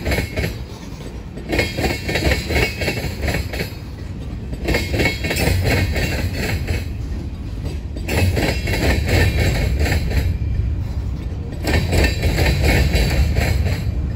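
Freight train cars rolling past slowly over the rails, with a steady low rumble and groups of wheel clicks over the rail joints coming round about every three seconds, one group per passing car.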